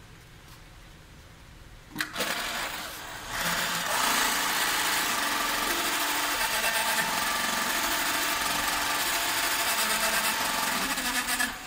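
TOPAFF 1591-BL post bed, roller-feed industrial sewing machine sewing. It starts about two seconds in with a short run, then runs steadily and stops with a few clicks near the end.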